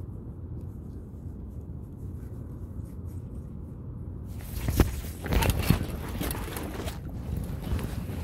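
Low rumble of wind and handling noise on the microphone, then about four seconds in a sudden loud scramble of scraping, knocking and splashing as a person slips and falls into the water at the bank.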